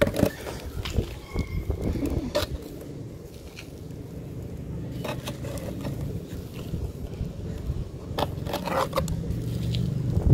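Hands picking up gritty mud balls off a cloth and handling them toward a plastic tub: a series of short scrapes and soft knocks, over a steady low rumble.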